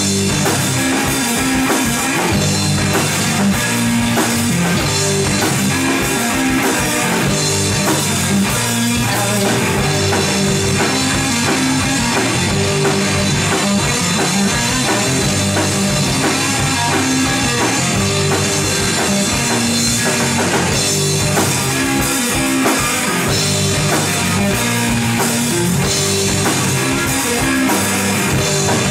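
Heavy rock band playing live: electric guitars and a drum kit in an instrumental passage with no singing, loud and steady throughout.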